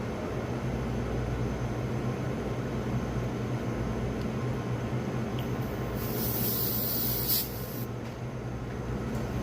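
Steady low hum of running equipment, with a short burst of high gas hissing about six seconds in, typical of refrigerant escaping from a hose or valve during a fridge gas refill. The hiss lasts about a second and a half and cuts off suddenly.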